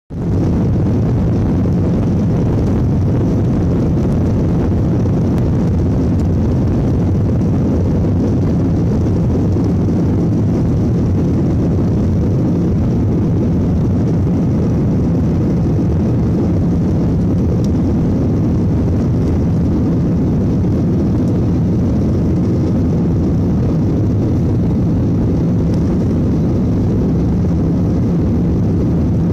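Steady low rumble of a jet airliner heard from inside the passenger cabin as it rolls along the ground: engine noise and wheel rumble, even throughout with no rise in thrust.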